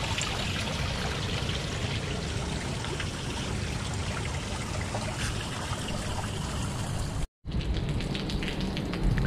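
Rainwater running into a large storm drain, a steady rush of pouring and trickling water.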